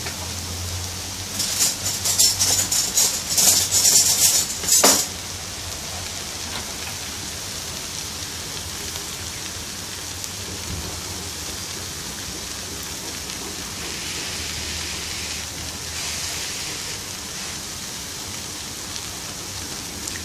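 Instant noodles with kale and bean sprouts sizzling in a large steel wok. Between about 1.5 and 5 seconds in, a metal spatula stirs and scrapes them with quick scratchy strokes. After that the sizzling goes on as a steady hiss.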